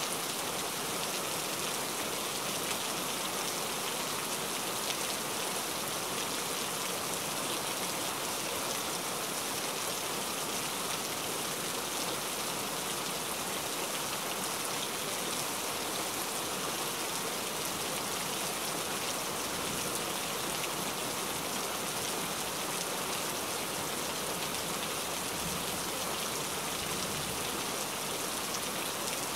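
Steady rain falling: an even, unbroken hiss of rainfall.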